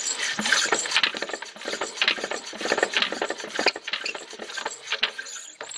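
Old Chaise Vega stationary engine being turned over by hand during an ignition check for a spark at the plug, its mechanism giving a dense, irregular rasping and clicking.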